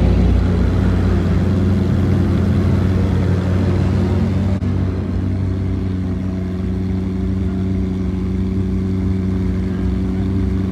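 Supercar engine running steadily, its pitch holding level throughout.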